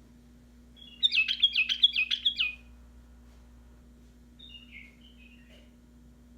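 White-eared bulbul calling: a loud, rapid run of about eight chirpy notes about a second in, followed a couple of seconds later by softer chattering calls.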